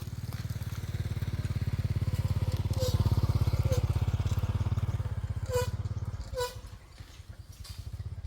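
A small engine running with a steady, rapid pulse, easing down to a lower, quieter run about six seconds in. A few short squeaks sound over it.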